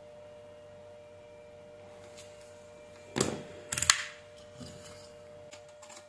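Clicks and knocks of tools and parts being handled and set down on a workbench. The loudest is a pair of sharp knocks a little past halfway, with a few lighter clicks after, over a faint steady hum.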